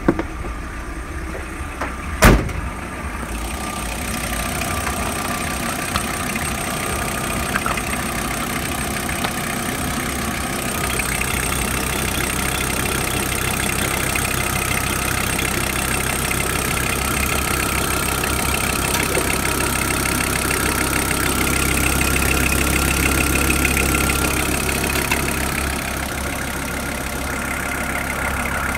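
A VW T4's 2.4-litre AAB five-cylinder diesel engine idling steadily. A single loud bang sounds about two seconds in.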